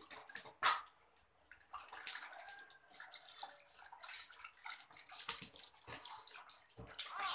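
Water splashing and trickling in a plastic baby tub as a newborn is washed by hand, in irregular small splashes.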